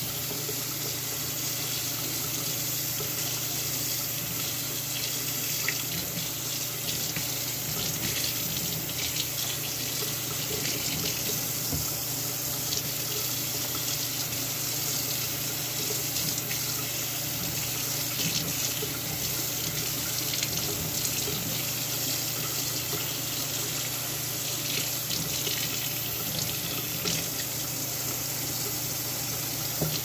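Running water pouring steadily onto a window air conditioner's plastic mesh filter and splashing into a utility sink as the filter is rinsed clean.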